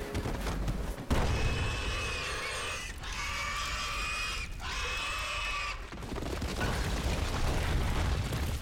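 Film sound design of a giant boar demon roaring: a sudden loud crash about a second in, then long, pitched, animal roars in three stretches over a heavy low rumble.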